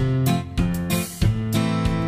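Background music: strummed guitar chords, a new chord struck every half second or so.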